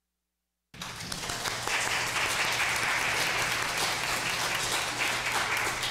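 Congregation applauding, many hands clapping together. The clapping starts abruptly under a second in, after dead silence, and stays steady.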